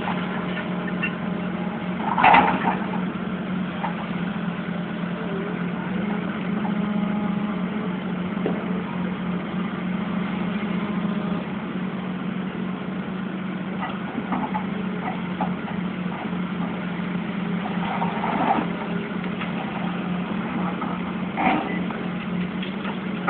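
Heavy demolition machinery running with a steady low engine hum, punctuated by a few short crashes of the building being broken up: the loudest about two seconds in, and two more near the end.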